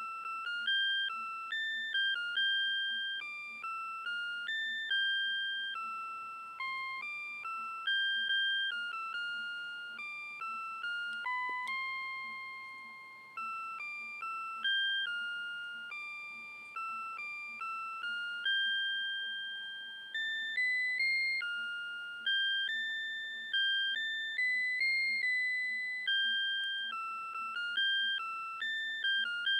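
Citizen CITE QHM3313-2 melody alarm clock playing one of its built-in tunes: a simple electronic chime melody, each note struck and then dying away, about two to three notes a second.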